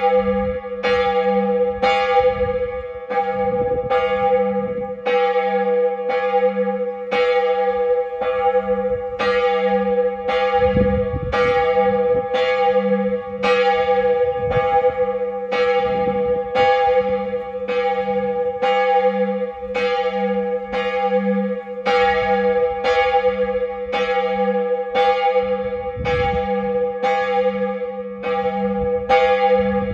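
A single cast-steel church bell tuned to G-sharp (gis'), cast by Buderus, ringing alone. Its clapper strikes a little under once a second, and each stroke runs into a steady, lingering hum beneath. This is the call rung half an hour before a service.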